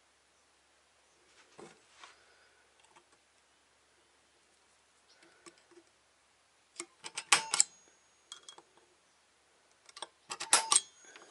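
Sharp metallic clicks of a center punch on a flat metal strip lying on a bench vise, marking drill holes. There are a few faint clicks about two seconds in, then two loud clusters of clicks, the second near the end.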